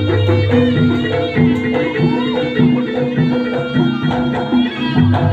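East Javanese jaranan ensemble music: a reed pipe plays a sustained melody over drums and a low gong drone.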